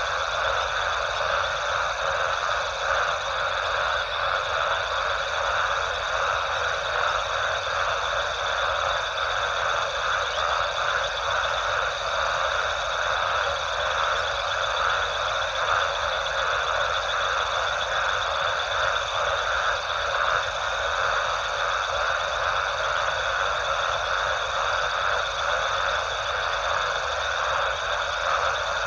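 A dense, steady night chorus of frogs: a continuous pulsing trill with no breaks, and a fainter steady high tone above it.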